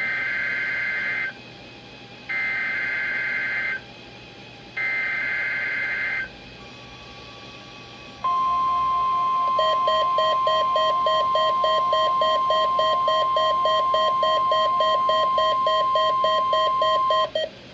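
Emergency Alert System SAME header from NOAA Weather Radio: three harsh two-tone data bursts about a second apart. Then the steady 1050 Hz weather radio warning alarm tone sounds for about nine seconds, marking a weekly test of the alarm. Partway through the tone, a lower rapid pulsing beep joins in, typical of a weather-alert receiver sounding its alarm in response.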